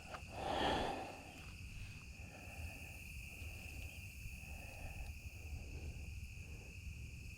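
A steady, high-pitched drone of insects, most likely crickets, with a brief, louder noise about half a second in and faint soft sounds at intervals after it.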